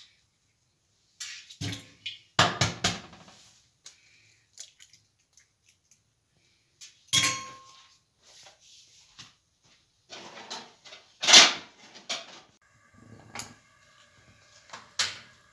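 Kitchen clatter: separate knocks and clinks of eggs and a ceramic bowl on a stainless-steel sink drainer, and a metal frying pan on a gas stove. One clink about halfway through rings briefly. The loudest knock comes about two-thirds of the way in.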